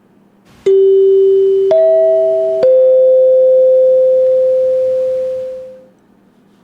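A three-note chime: three struck, clear tones, low, then high, then in between, about a second apart, ringing on together and fading out a few seconds later.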